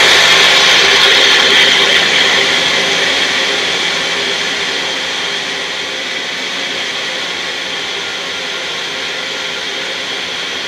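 Electric kitchen blender running continuously as it blends a thick homemade hair mask mixture. It is loudest in the first couple of seconds, then eases to a steady, slightly lower pitch as the mixture smooths out.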